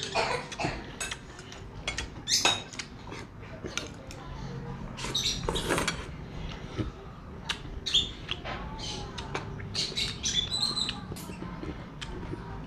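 Metal fork and spoon clinking and scraping against a ceramic plate during eating, in short irregular clicks.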